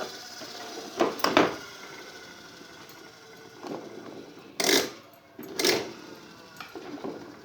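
A series of short, sharp knocks and clanks at irregular intervals, about eight in all, the loudest a little over a second in and again near the middle.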